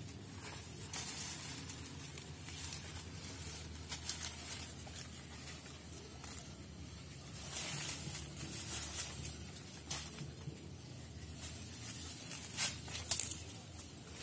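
Leaves and branches of a waru (sea hibiscus) tree rustling and scraping in irregular bursts as a person climbs it barefoot, with a couple of sharper clicks near the end.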